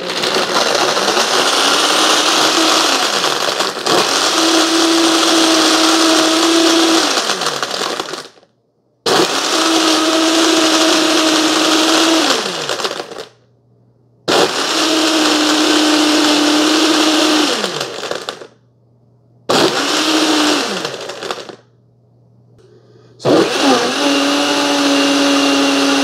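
Mr. Coffee frappe maker's blender (BVMC-FCM-2T) crushing ice with coffee and milk into a frozen frappe, running its blend cycle in five pulses: each time the motor spins up, holds a steady hum, then winds down with falling pitch before pausing for a second or two.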